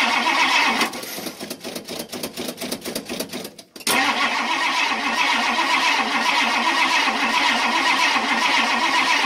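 1962 Ford Thunderbird's 390 V8 being cranked on the starter from cold, the cranking rising and falling in an even rhythm. About a second in, the cranking breaks off into a quieter stretch of separate sharp ticks lasting about three seconds. The cranking then starts again and runs on steadily.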